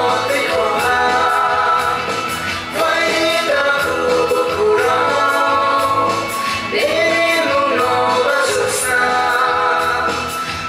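Dance music: a song with singing in long, held phrases over a steady instrumental backing.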